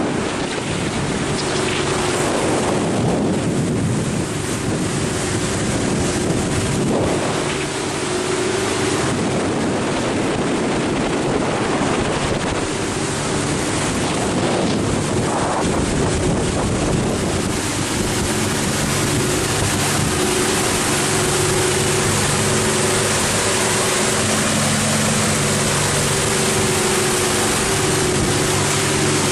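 1990 Bimini 29 sportfisherman running under way: a steady engine drone under the rush of water along the hull, with wind buffeting the microphone. The drone grows stronger and steadier in the second half.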